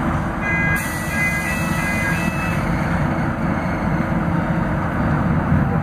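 Scania DC09 five-cylinder diesel of a city bus running steadily under load on an uphill climb, heard from inside the passenger cabin as a low drone. A hiss starts suddenly about a second in and fades out a couple of seconds later, with a few faint short high tones near the start.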